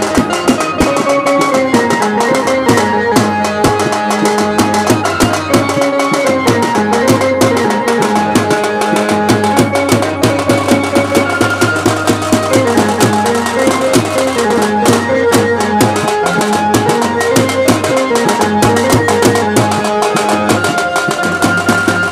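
Indian band-party music: a bass drum and a side drum beaten in a fast, dense rhythm under a gliding, ornamented melody and held low notes.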